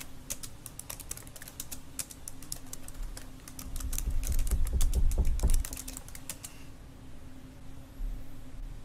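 Rapid typing on a computer keyboard, a quick run of key clicks that stops about six and a half seconds in. A low rumble swells under it from about three and a half to five and a half seconds in, the loudest part, over a steady low hum.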